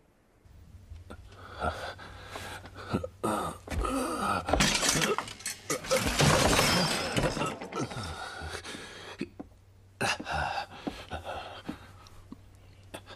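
A series of crashes and clatters with something breaking, loudest in a noisy stretch about four to eight seconds in, with wordless voice sounds among them.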